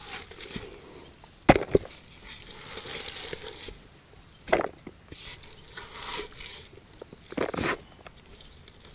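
Boiled peas being portioned out into groundbait by hand: rustling and scraping with sharp knocks about a second and a half in, near the middle, and near the end.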